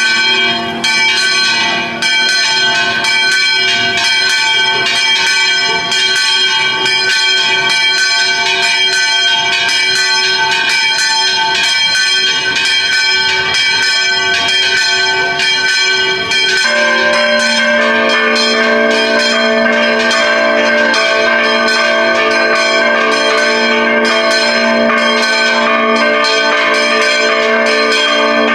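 Church bells pealing, struck in steady rapid strokes with long ringing tones. About halfway through the peal shifts abruptly to a different, deeper set of tones.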